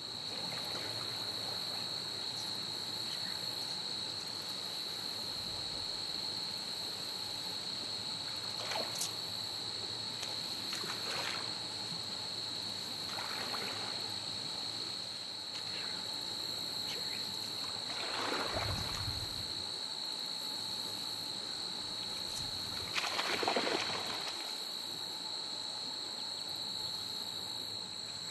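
Insects singing in a steady, high-pitched drone, with short water splashes now and then. The loudest splash, near the end, is a trout thrashing at the surface.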